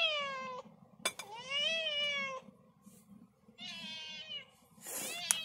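Domestic cat meows played back from a funny cat video on a phone speaker: about four long meows, each rising then falling in pitch, roughly one every second and a half, with a couple of sharp clicks between them.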